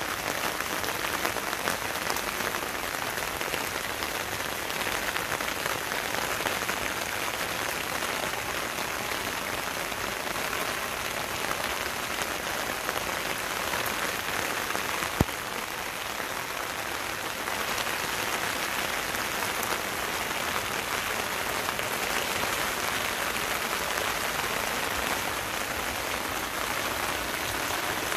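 Steady rain falling on garden leaves, grass and wet paving, a dense hiss of countless droplets, with one sharp click about halfway through.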